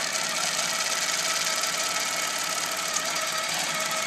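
Handi Quilter HQ-18 Avante longarm quilting machine stitching steadily under Pro-Stitcher computer control, the needle running at a rapid, even rate.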